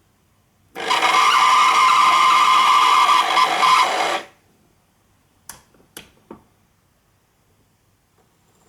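Lemaco turnout point motor running, a steady whine lasting about three and a half seconds that stops suddenly. It is followed by three short clicks.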